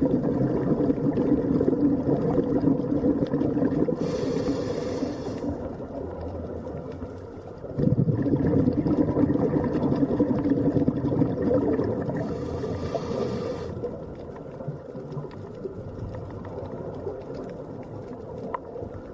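A relaxing water-sound bed: continuous flowing, gurgling water with low sustained humming tones, swelling at about 8 seconds and slowly fading after. Two brief hissy washes come at about 4 and 12 seconds.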